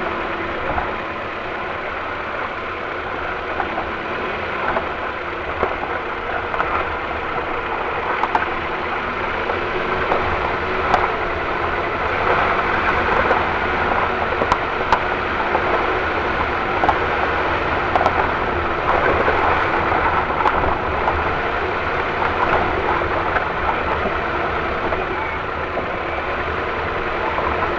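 Ford Focus II running, with irregular short knocks from the suspension over the steady vehicle noise; the owner thinks the steering rack may be the cause.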